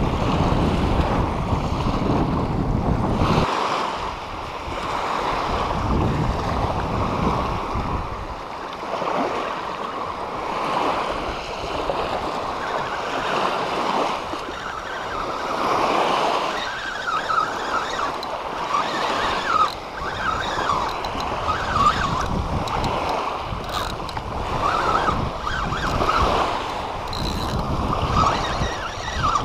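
Small waves washing on a sandy shoreline, with wind buffeting the microphone, heaviest in the first few seconds.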